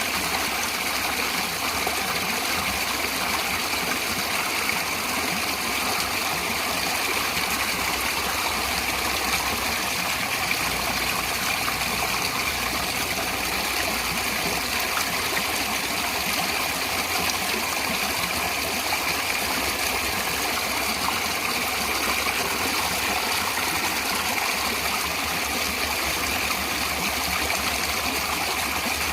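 Natural stream water flowing and splashing steadily, a continuous rushing with no breaks.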